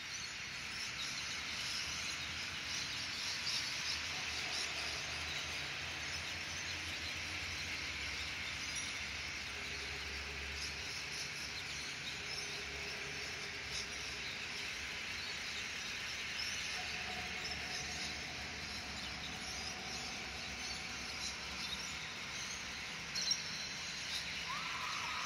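Outdoor evening ambience: a steady high hiss scattered with faint chirps, over a low distant rumble. A short rising tone comes in near the end.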